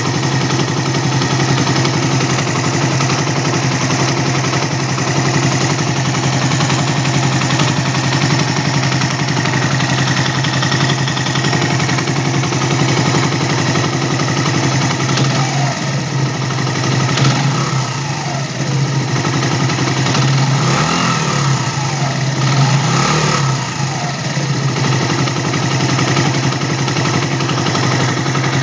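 Mash 75 motorcycle engine running steadily at idle. In the middle stretch its speed rises and falls a few times as it is revved, then it settles back to a steady idle.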